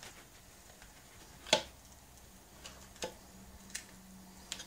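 Kitchen knife clicking and knocking against a wooden chopping board while carving roast grouse meat off the bone: a few sharp taps, the loudest about a second and a half in.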